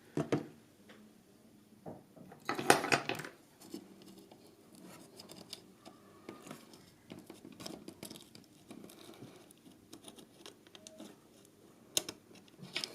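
Light scraping and clicking of small metal tools against a circuit board while a surface-mount USB socket is being desoldered, with a burst of louder clatter about two and a half seconds in and a single sharp click near the end.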